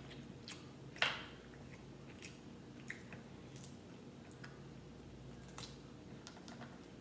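Cooked crab leg shells being cracked and picked apart by hand: a scattered string of small cracks and snaps, the sharpest about a second in.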